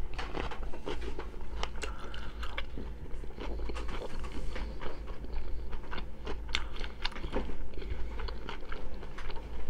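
Close-miked chewing of a mouthful of food with the mouth closed: a steady run of soft, irregular wet clicks and small crunches.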